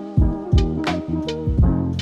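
Background music with a steady beat: drum hits over sustained bass and instrument notes.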